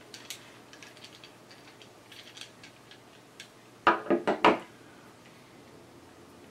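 Light clicks of small brass CO2-regulator fittings being handled, then a quick cluster of louder knocks about four seconds in as parts are set down on the tabletop.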